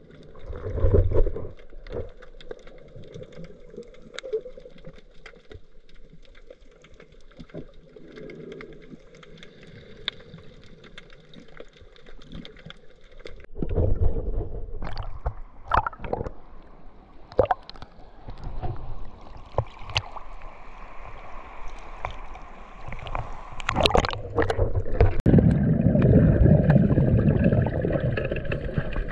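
Water sloshing and gurgling around an action camera as a diver swims underwater and at the surface: scattered clicks at first, splashing from about halfway, then a loud rush of water near the end as the camera goes back under.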